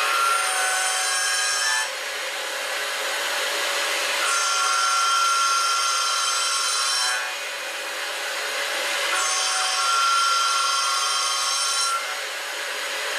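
End mill trochoidal-milling a titanium blisk: a steady hiss, with a high multi-tone cutting whine that comes on three times, each time lasting about one and a half to three seconds before dropping away.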